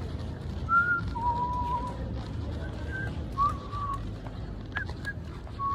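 A person whistling a slow tune: a handful of separate held notes with small slides between them, over a steady low rumble.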